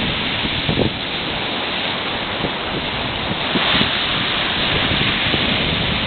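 Sea surf washing onto the shore, with wind buffeting the microphone. A wave swells to its loudest a little past halfway through.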